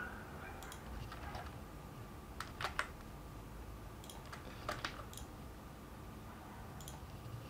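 Sparse clicks of a computer keyboard and mouse, two pairs of sharper clicks about two and a half and four and three-quarter seconds in, over a faint steady hum.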